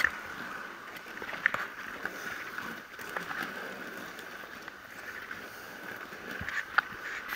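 Bicycle rolling along an asphalt bike lane: a steady rush of tyre and wind noise with a few sharp rattling clicks from bumps in the road.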